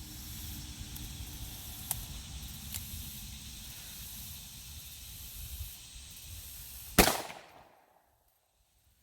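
A single loud gunshot about seven seconds in, ringing off over half a second, over steady outdoor background noise with two faint clicks earlier on.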